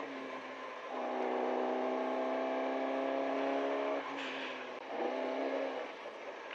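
The Fiat 127 Group 2 rally car's 903 cc engine, heard from inside the cabin while driving, holding steady revs. It falls away briefly about four seconds in, with a short hiss, then picks up again before easing off near the end.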